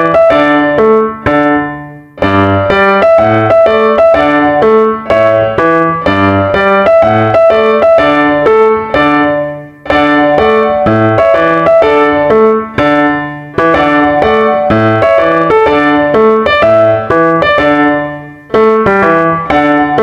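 Background piano music: a light melody of separate notes over a repeating bass line, with brief breaks between phrases every few seconds.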